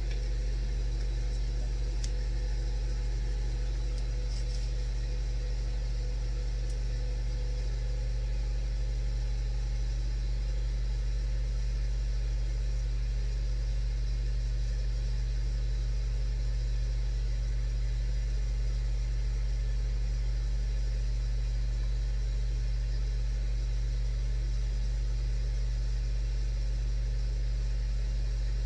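Steady low hum of the Ninja grill running, its fan motor droning without change, with a few faint ticks in the first few seconds.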